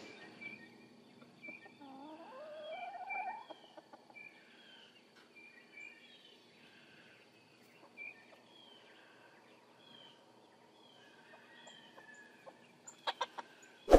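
A chicken calling once near the start: a wavering note that rises in pitch over about a second and a half. Faint high bird chirps repeat throughout, with a few sharp clicks near the end.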